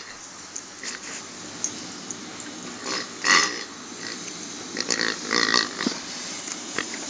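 Multipet rubber toy pig grunting as a dog chews and squeezes it: several short oinks, the loudest a little over three seconds in.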